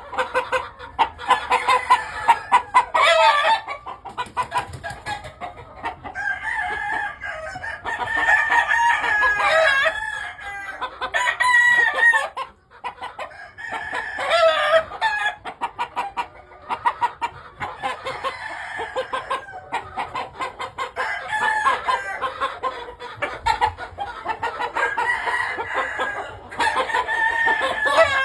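Several gamefowl roosters crowing one after another and over each other, with hens or birds clucking between crows.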